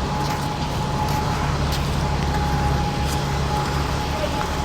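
Steady street traffic noise from passing cars and buses: a low rumble under an even hiss, with a thin steady whine above it.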